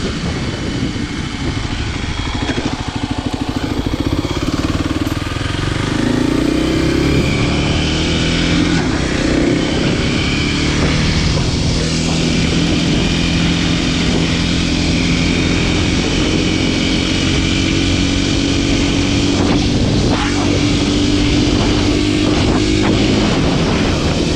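Kawasaki KLX300SM supermoto's single-cylinder four-stroke engine running under way. The pitch rises about six seconds in as it accelerates, then holds at a steady cruise.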